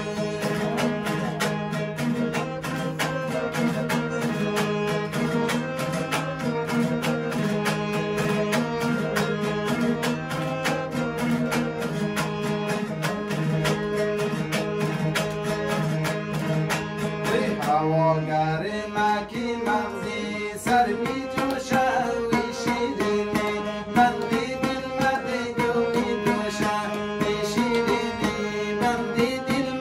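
Live Hazara folk music: a dambura strummed fast and steadily over sustained harmonium chords. About eighteen seconds in the strumming thins out and a singing voice carries the melody over it.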